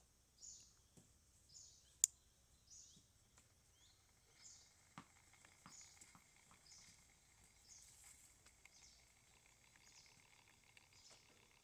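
Faint woodland ambience: a bird repeats a short, high, slightly falling chirp about once a second over a faint steady hiss. A sharp click about two seconds in is the loudest sound, and there are a few softer ticks.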